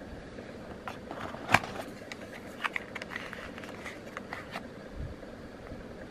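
Handling noise from cardboard packaging and a charging cable being unpacked: scattered light clicks and taps, with one sharper knock about a second and a half in and a quick run of small clicks soon after.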